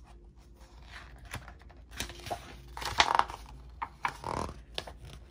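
Pages of a large hardcover picture book being handled and turned: a series of short paper rustles and flaps, the loudest about three seconds in.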